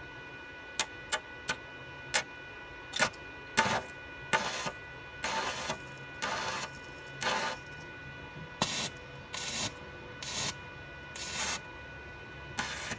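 Stick welding on a steel pipe rail: a few sharp snaps as the electrode is scratched on to strike the arc, then the arc catching in short crackling bursts, each under a second, that keep going out again.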